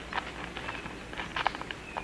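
Rain forest ambience: irregular light ticks and crackles, with a faint high chirp or two.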